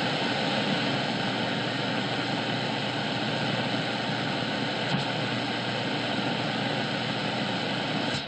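Tecsun S-2200x shortwave receiver hissing with static as it is tuned across the 31-metre band between stations, with faint steady tones under the hiss. The high noise floor is the local noise that the listener says masks weaker signals.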